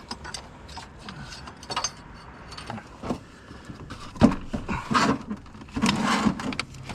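Scattered clicks, knocks and rattles of hands handling parts and tools on the car, with a few louder clatters in the second half.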